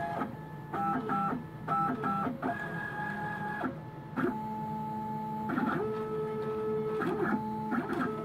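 NEMA 17 and NEMA 23 stepper motors of a home-built CNC router whining through an air cut, with no spindle running. Several steady tones sound together and jump to new pitches with each move, some moves brief and some held over a second.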